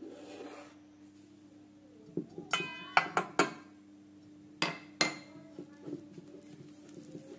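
Stainless steel mixing bowl being knocked: a quick run of sharp metallic clinks about two to three and a half seconds in and two more around five seconds, each ringing briefly.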